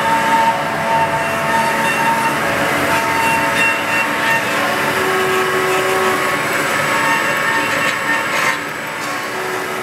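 AMADA H-1080 automatic band saw running, its blade cutting through a round metal bar under coolant. A steady metallic cutting noise with several high ringing tones that come and go.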